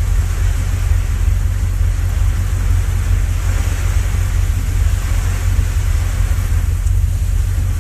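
Steady low rumble of a truck's engine heard from inside the cab, under an even hiss.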